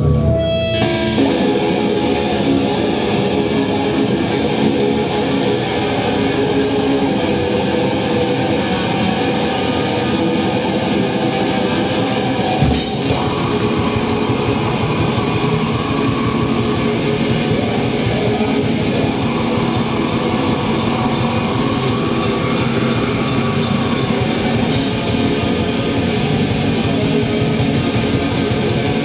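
Metal band playing live with loud distorted electric guitars. About halfway through, the sound suddenly fills out and gets brighter.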